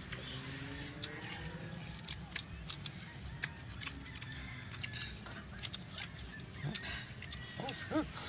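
Eggshells of balut duck eggs being cracked and peeled by hand: scattered sharp clicks and crackles, with a low rumble of outdoor background underneath. A brief pitched call rises and falls near the end.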